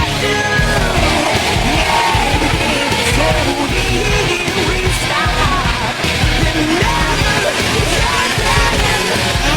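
Loud rock music with a shouted, sung vocal over a driving low end.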